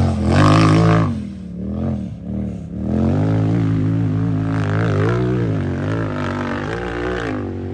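Race UTV engine revving under throttle: the pitch rises and falls several times, then holds a steadier high run with small wobbles.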